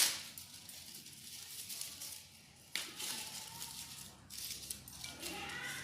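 Dry banana leaves crackling and rustling as they are handled in a steel bowl, quietly, with one sharp click a little under three seconds in.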